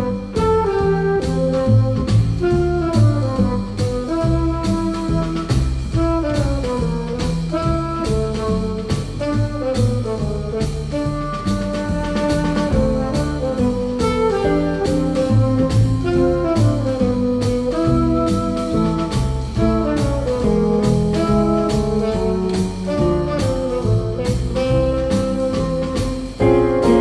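Jazz music with saxophone over a walking bass and a steady drum-kit beat.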